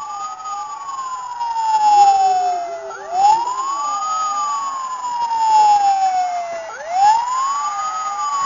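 Toy fire engine's electronic wail siren, each cycle rising quickly and then sliding slowly down, repeating about every four seconds.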